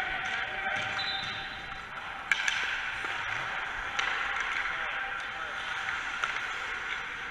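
Hockey rink practice noise in an echoing hall: indistinct voices over a steady hiss of skating, with a few sharp clacks of sticks and pucks on the ice, the loudest about two seconds in.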